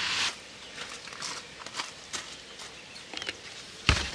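Folding foam mattress and wooden boards being shifted in a car's cargo area: a brushing slide at the start, scattered light knocks and taps, and a louder thump near the end.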